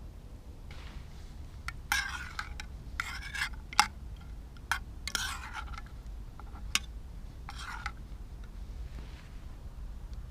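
A series of short rubbing and scraping strokes with a few sharp clicks among them, the loudest click about four seconds in, over a steady low rumble.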